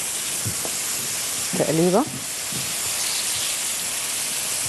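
Chopped onion and garlic frying in butter and oil in a pan, with floured chicken frying in a second pan: a steady sizzling hiss, with light stirring by a silicone spatula.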